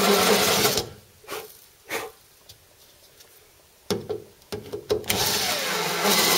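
Electric drill with a flat-bottomed cobalt spot-weld bit cutting into a spot weld in sheet steel. It stops about a second in, a few light knocks and clicks follow, and it starts cutting again about five seconds in.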